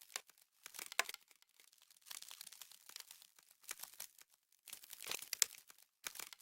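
Frozen snow crunching, crisp crackles in uneven clusters about once a second, with the loudest crunches near the start, about a second in and around five seconds in.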